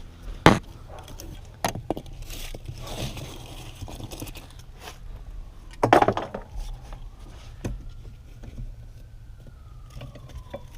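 Knocks, clunks and scraping of car interior parts being handled and pulled out, the loudest clunk about six seconds in. Through the second half a siren wails faintly, slowly rising and falling in pitch.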